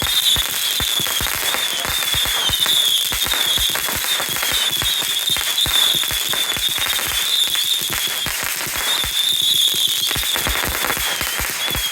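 Firecrackers or crackling fireworks going off in a rapid, irregular string of sharp pops, several a second, without pause. A high, wavering whistle sounds over them and breaks off briefly about eight seconds in.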